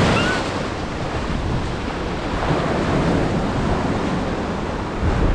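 Surf washing on the shore, a steady rushing noise, mixed with wind buffeting the microphone, with a stronger gust of low rumble near the end.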